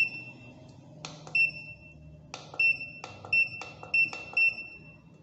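Keypad of a Hikvision fingerprint time-attendance terminal being pressed. Each button press gives a click and a short, high confirmation beep. This happens six times, coming quicker toward the end as the menus are stepped through.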